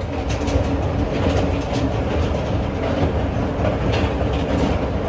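Amusement rides running: a steady low mechanical rumble with faint, irregular clicks over it.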